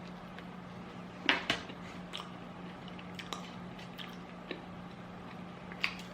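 A person biting into and chewing a slice of cheese pizza: a few short, soft mouth and crust sounds scattered through the chewing, over a steady low hum.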